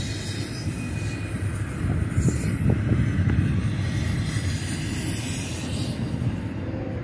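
Double-stack container freight train rolling past: a steady low rumble of steel wheels on rail, with a few clanks from the passing well cars about two to three seconds in.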